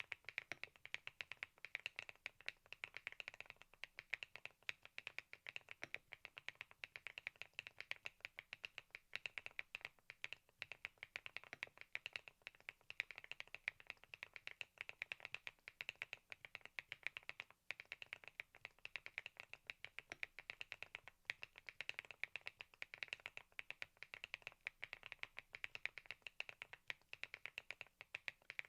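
Fast, continuous typing on a Thinkway TAUCHE.S 501 full-aluminium mechanical keyboard: a steady stream of many key clacks a second.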